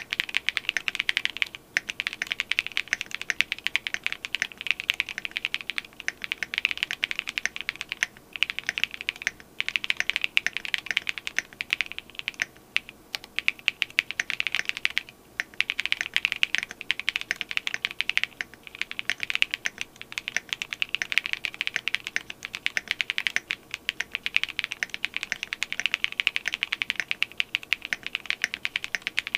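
Tomo SE mechanical keyboard with Graphite Gold switches, a polycarbonate plate, case and PCB foam, and Osume Keys Dusk keycaps, typed on quickly in a fast stream of keystrokes, with brief pauses every few seconds.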